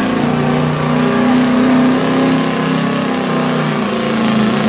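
GMC diesel pickup pulling the sled at full throttle, its engine held at high revs with a steady note that starts to waver near the end.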